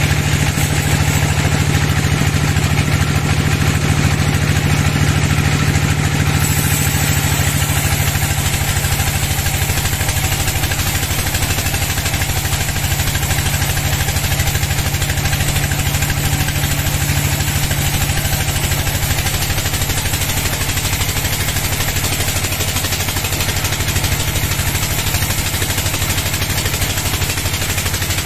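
Log band sawmill running steadily and sawing through a teak log: a constant low machine drone under the hiss of the blade in the wood. The hiss grows fuller about six seconds in and holds.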